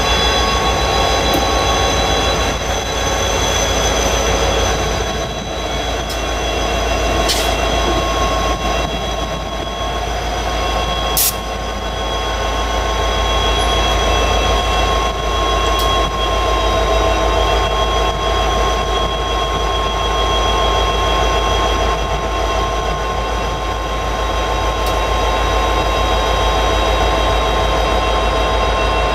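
Two EMD GP60 diesel locomotives running slowly past with their wheels squealing in several steady high tones, the flange squeal of the train taking the curve of a wye. Two sharp clicks come about seven and eleven seconds in.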